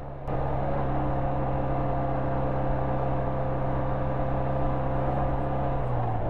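BMW R100RS's air-cooled boxer twin running steadily under way at cruising speed, heard from the rider's seat along with wind and road hiss. It starts abruptly just after the start, and the engine note drops slightly near the end.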